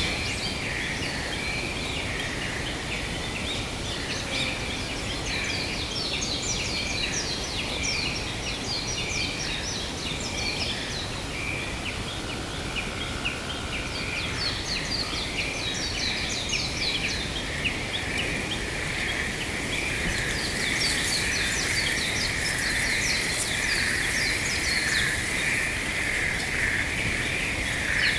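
Forest ambience: many birds chirping and calling over a steady high chorus that swells in the second half, with a constant low rush of wind underneath.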